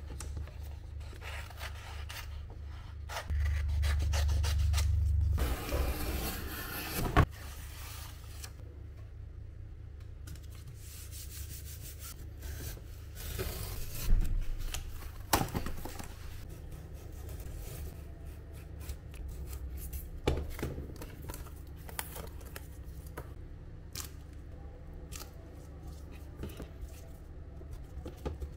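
Cardboard being cut and handled: irregular rubbing and scraping with a few sharp taps, over a low steady hum.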